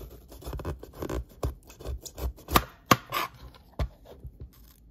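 Kitchen knife slicing a yellow bell pepper on a cutting board: irregular crisp cutting and scraping, with a few sharp knocks of the blade on the board, the loudest about two and a half and three seconds in.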